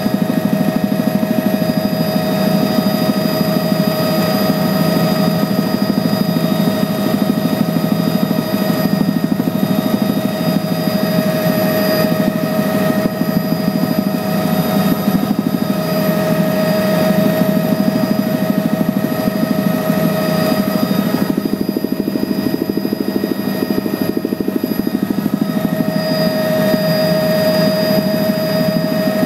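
Small aircraft heard from inside the cabin in flight: a loud, steady drone of engine and blades with a constant whine over it.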